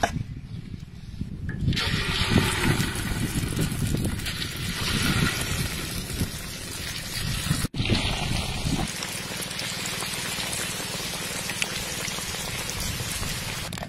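Battered fish pieces frying in hot oil, a dense sizzle full of fine crackles that starts about two seconds in.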